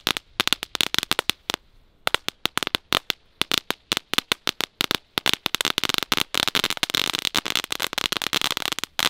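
Knetterlint, a category 1 crackling-ribbon firework, burning along its length: a fast, irregular run of small sharp bangs. The bangs come thinner for the first few seconds, then pack into a dense crackle.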